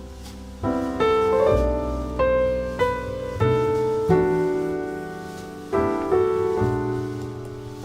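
Background music: piano notes struck one after another and fading, in a slow melody.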